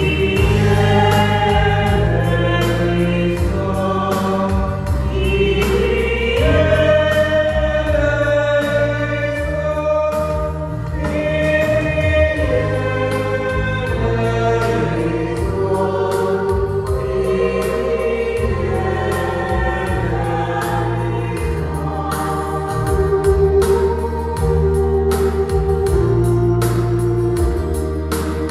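A small church choir of a few voices singing a slow hymn in long held notes, accompanied by an electronic keyboard playing sustained organ-like chords and bass.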